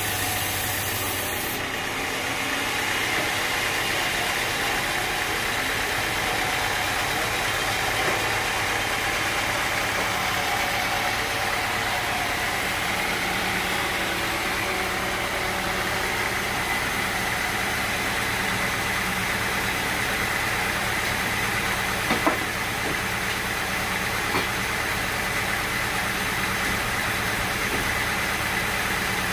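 Sawmill machinery running steadily with an even engine-like hum, with two short sharp knocks about 22 seconds in.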